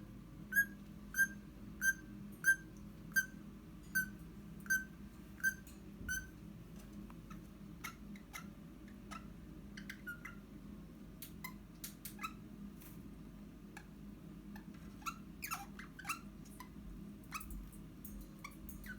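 Eastern rosella whistling: a run of about ten short, sharp piping notes, evenly spaced at roughly one and a half a second. The run stops about six seconds in and gives way to softer, scattered short chips and clicks.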